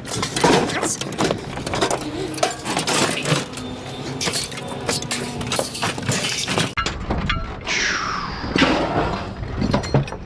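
Pieces of scrap metal clattering and clinking as they are tossed onto a pile, many sharp impacts in quick succession. About seven seconds in, this gives way to a low rumble with two high squeals that fall in pitch.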